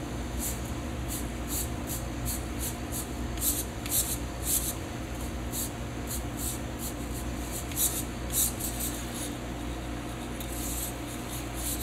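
Animatronic dog puppet's mechanism working: irregular short hissy bursts, one or two a second, over a steady low hum.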